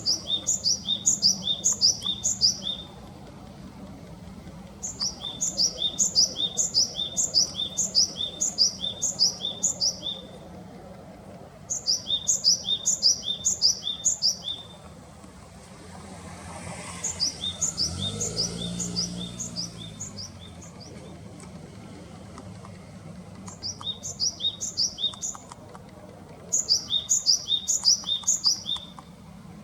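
Japanese tit song: bouts of fast repeated two-part notes, about four a second, each bout a few seconds long with short pauses between, from a field-guide recording. About halfway through a low engine hum rises and fades as a vehicle passes.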